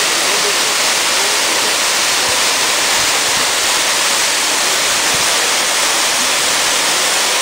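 Mountain waterfall pouring into a rock pool: a loud, steady rush of falling water.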